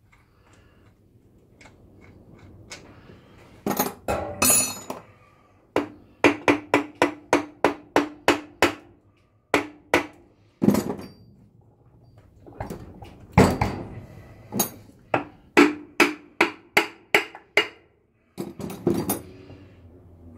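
A hammer striking a Holden M20 four-speed gearbox's rear extension housing to knock it loose from the main case, in runs of quick blows about three a second, each with a short ring.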